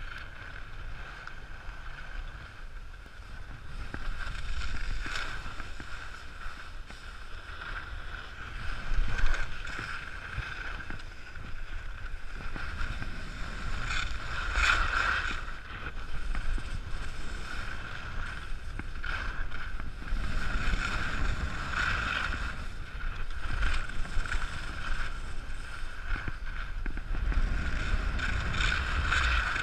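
Skis hissing and scraping over packed snow on a downhill run, swelling every few seconds with the turns, over wind rumbling on the camera's microphone.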